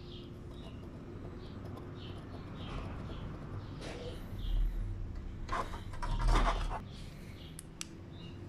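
Handling noise from working on a small LED driver circuit board on a workbench: light rubbing, then two louder scuffing scrapes with a dull thud in the middle. Faint bird chirps sound in the background.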